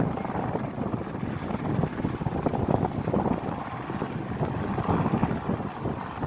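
Wind buffeting the microphone: a gusty low rumble that swells and eases irregularly.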